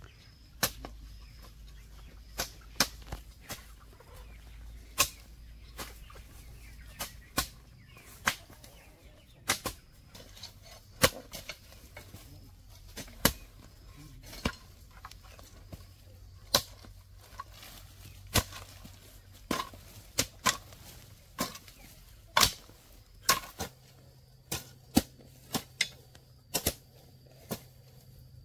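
A series of sharp, irregular knocks, roughly one or two a second, some much louder than others.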